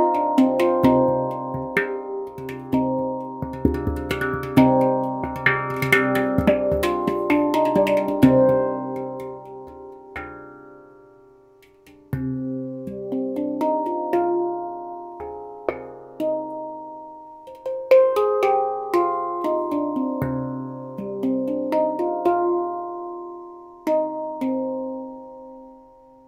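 Stainless-steel C minor handpan played with bare hands: quick runs of struck notes, each ringing on, with a low note under higher ones. The playing thins and nearly dies away about ten seconds in, starts again at about twelve seconds, and the last notes ring out and fade near the end.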